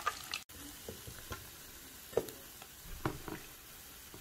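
Pieces of lamb leg frying in hot oil, sizzling, with a few light clicks of a utensil against the pot. The sound cuts out for a moment about half a second in and goes on more quietly.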